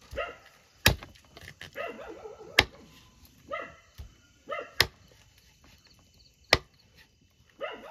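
Four sharp knife chops, about two seconds apart, as food is chopped for cooking. Between the chops a dog gives short, high barks.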